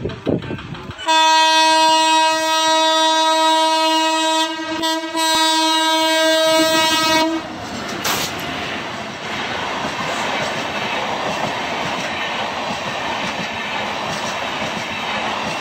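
Indian Railways electric locomotive sounding its horn in one long steady blast of about six seconds, starting about a second in, with a brief dip near the middle. When the horn stops, the express train passing at high speed fills the rest with a steady rushing roar of the locomotive and coaches going by.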